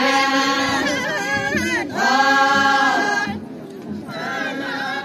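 A group of women singing together in unison, holding long notes; the singing drops briefly about three and a half seconds in, then picks up again.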